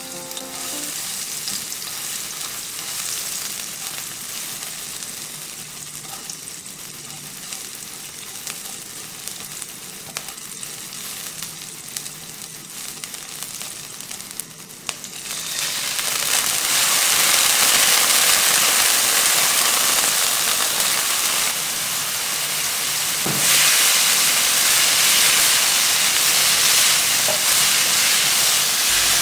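Food sizzling in hot oil in a nonstick pan, with light scraping from a silicone spatula stirring garlic, chilies and dried shrimp. About halfway through the sizzle gets much louder and fuller as bitter melon and wood ear mushrooms stir-fry over high heat, with a single knock a little later.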